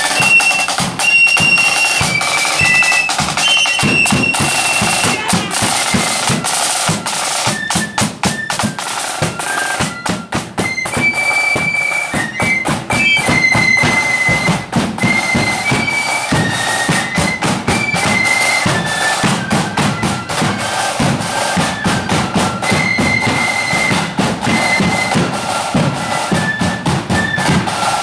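Marching flute band playing a tune: flutes carrying a stepping melody over side drums and a bass drum beating time.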